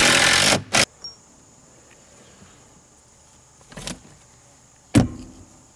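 DeWalt cordless impact driver running, driving a screw into wood, stopping abruptly under a second in. Later comes a brief rustle, then a single sharp knock near the end.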